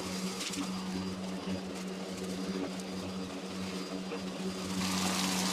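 Worx Nitro WG761E cordless lawnmower running steadily with an even motor hum at one pitch while mowing; a louder rushing noise joins near the end.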